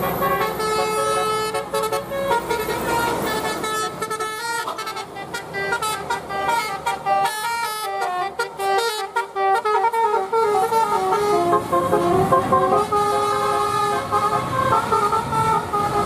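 Basuri-style 'telolet' multi-tone bus horns playing a melody: held notes stepping up and down, several sounding at once, over the noise of the passing buses.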